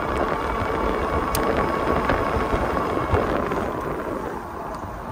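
Wind buffeting the microphone and tyre noise while riding a Vitilan i7 Pro e-bike along a paved street, with a faint steady whine underneath. The noise eases a little about four seconds in as the bike slows.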